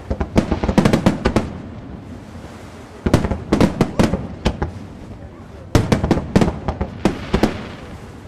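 Fireworks display: aerial shells bursting in three volleys of rapid sharp bangs, with short lulls between them.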